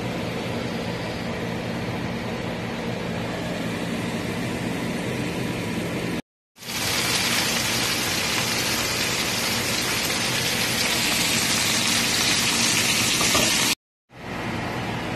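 Sliced mushrooms sizzling in a hot frying pan as a steady hiss over a low hum. After a brief break about six seconds in, the sizzle comes back louder and brighter. The sound cuts out again briefly near the end.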